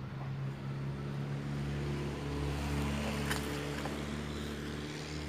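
Steady low motor hum with a constant pitch, a little louder in the middle, and a single sharp click about three seconds in.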